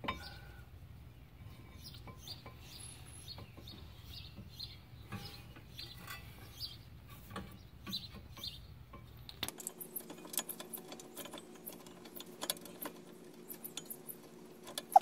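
Light metallic clicks and clinks of brake pads and caliper hardware being handled and fitted on a car's front disc brake, coming more often in the second half.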